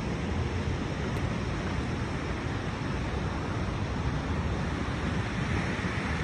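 Steady wash of ocean surf on a beach, with wind buffeting the microphone as a low, uneven rumble.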